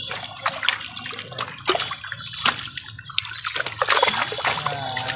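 Water splashing and sloshing in a net pen crowded with live fish, as the fish thrash and hands scoop among them. The sound is a busy, irregular patter of small sharp splashes.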